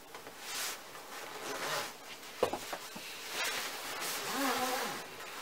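Zipper being pulled along the fabric of a Kinderkraft Joy travel cot, a buzzy rasp in several strokes amid fabric rustling, with one sharp click about two and a half seconds in.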